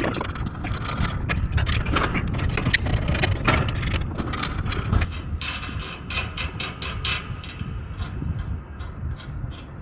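Clicks, knocks and rattles of hardware being handled at an equipment mount, over a steady low rumble. From about seven seconds in, a faint high ticking repeats about three times a second.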